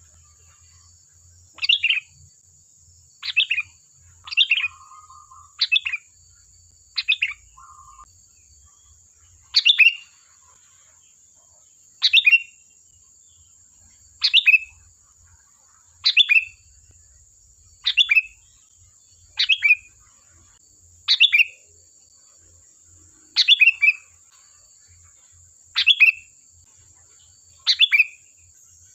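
Sooty-headed bulbul (kutilang) calling: a short, falling call repeated about every one and a half to two seconds, over a faint steady high hiss.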